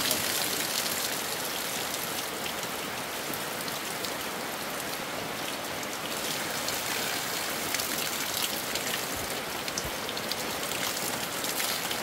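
Steady rain falling on a camping tarp overhead, with many separate drop hits heard through the even hiss of the downpour.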